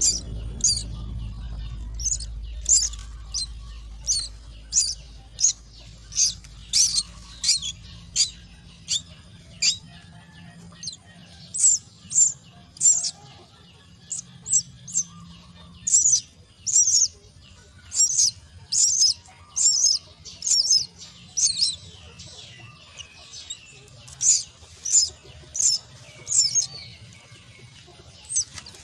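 Myna chicks' high-pitched begging calls from the nest, short sharp calls repeated about once or twice a second, over a low rumble that fades out in the first several seconds.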